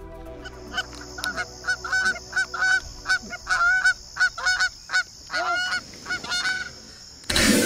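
Canada geese honking: a long series of short, repeated honks, about two a second. Near the end a loud, sudden sound cuts in.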